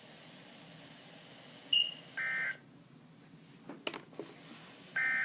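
Two short bursts of buzzy data tones, the SAME end-of-message code of a NOAA Weather Radio broadcast closing its Required Weekly Test, over steady radio hiss. The first burst comes about two seconds in, just after a short high beep, and the second near the end, with a few clicks between them.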